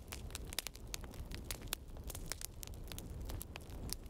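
Faint irregular crackling: sharp clicks, several a second at uneven spacing, over a steady low rumble.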